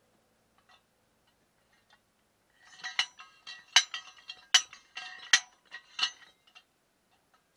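Homemade sliding hammer, a heavy steel driver of about 5 kg, sliding down and striking as it drives a pepper-support pipe into the ground: a run of sharp, ringing metal clanks, about five strong strikes a little under a second apart, starting about three seconds in.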